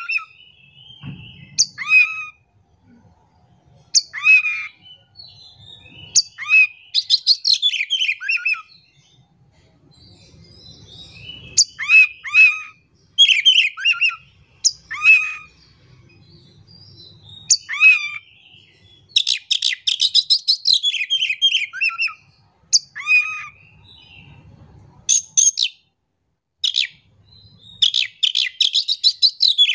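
Caged oriental magpie-robin (kacer) singing loudly. It gives sharp, rapid phrases of notes that sweep down in pitch, in irregular bursts with short pauses between them.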